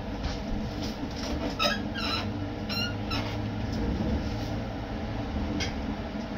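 Heavy tow truck's diesel engine idling with a steady low hum, with a few short high-pitched squeaks about one and a half to three seconds in.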